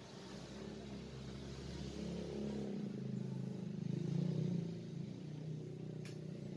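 A motor vehicle's engine running past, growing louder to a peak about four seconds in and then easing off. A single sharp click near the end.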